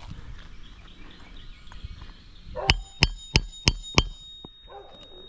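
Hammer driving roofing nails into asphalt 3-tab shingles: five quick, sharp, ringing strikes, starting about two and a half seconds in and over in little more than a second.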